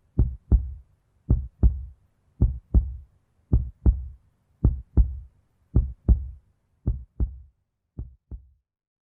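Heartbeat sound effect: eight slow double thumps, lub-dub, about one beat a second, growing fainter near the end.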